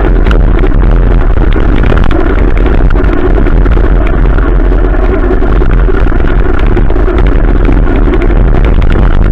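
Adventure motorcycle being ridden, its engine running steadily under loud, constant wind and road noise.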